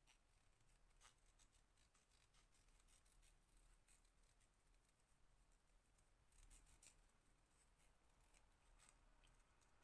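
Very faint snips of small scissors cutting around a printed paper image, a few scattered cuts with two close together about six and a half seconds in.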